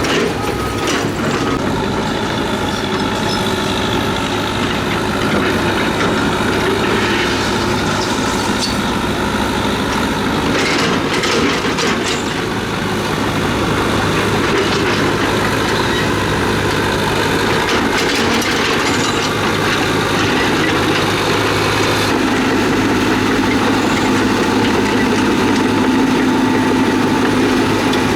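Diesel engine of tracked earthmoving machinery running steadily under work, with scattered metallic clanks and knocks. About three-quarters of the way through, a new steady drone joins the engine sound.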